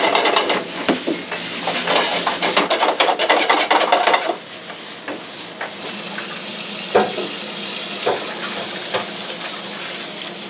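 Food sizzling in a hot pan while a utensil stirs and scrapes it. Rapid clicks and scrapes are loudest for the first four seconds or so, then a quieter steady sizzle with occasional taps.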